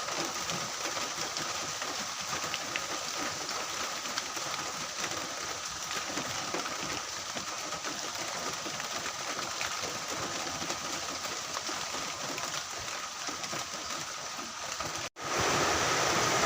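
Heavy rain falling steadily, an even hiss. Near the end it cuts off abruptly and a louder steady noise takes over.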